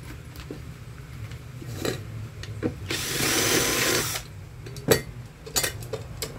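Cordless drill running for about a second as it bores through the metal bracket on a pressure-cooker lid, enlarging a hole. Light clicks and clatter of the bit and tools being handled before and after.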